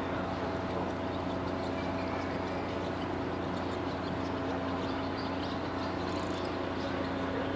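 Steady mechanical hum of a running engine or machinery, holding a few constant tones without change.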